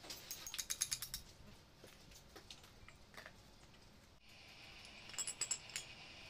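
Rapid light metallic clicking of tools and parts on a disassembled excavator hydraulic pump: a quick run of about ten clicks near the start and a shorter run about five seconds in.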